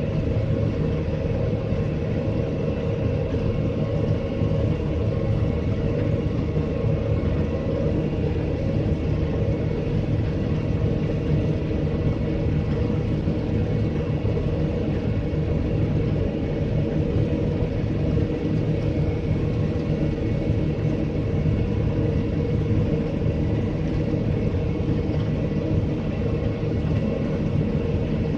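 Combine harvester running steadily while harvesting oilseed rape and unloading on the go: an even engine and threshing-machinery rumble with a constant whine.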